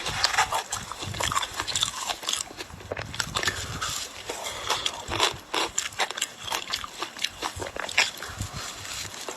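Ice being bitten and chewed: a dense, irregular run of crisp crunches and cracks, several a second.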